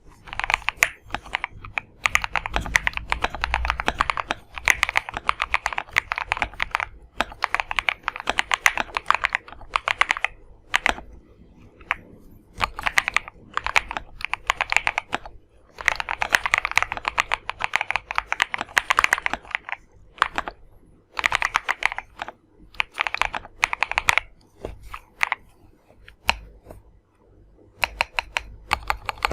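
Zoom75 mechanical keyboard with Vertex V1 switches and MT3-profile keycaps being typed on, fast runs of keystrokes broken by short pauses.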